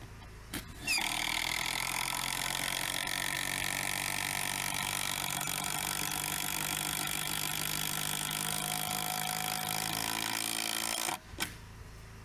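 Cordless drill running steadily for about ten seconds, driving a 10-inch log screw down through a cedar timber into the log below. It starts just after a click and stops suddenly about a second before the end.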